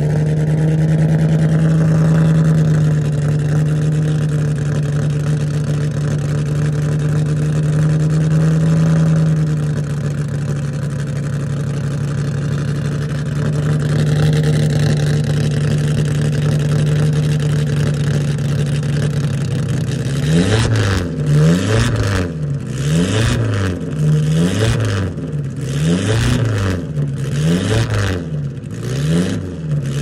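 Ferrari 500 Mondial Series II's four-cylinder racing engine running at a steady speed on a stationary car. About two-thirds of the way through it starts being blipped over and over, the revs rising and falling about once a second.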